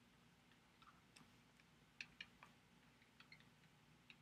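Near silence, broken by a few faint clicks of a stylus tapping on a tablet while writing: a small cluster about two seconds in and a pair about a second later.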